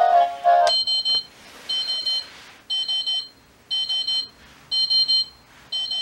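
Seiko Pyxis NR445W alarm clock changing alarm sounds: a synthesized melody breaks off under a second in, and the electronic 'pi-pi' beep alarm starts. The beep comes as clusters of rapid high beeps, each about half a second long, repeating about once a second.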